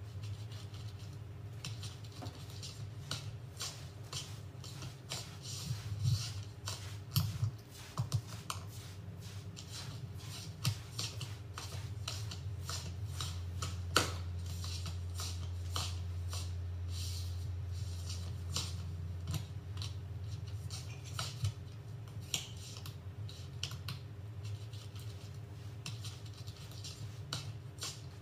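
Scattered light clicks and taps of small objects being handled, over a steady low hum; one sharper knock about halfway through.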